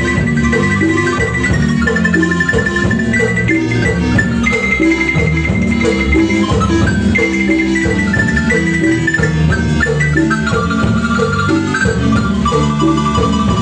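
Marimba music: a melody in rapidly repeated rolled notes over a lower bass line, playing steadily.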